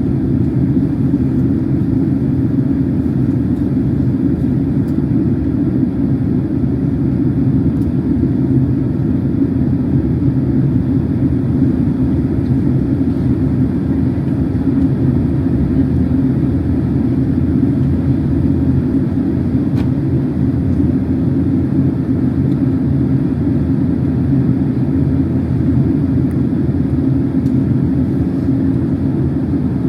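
Steady low-pitched cabin noise inside a Boeing 767-300 airliner in descent: jet engines and airflow over the fuselage, with no change in level.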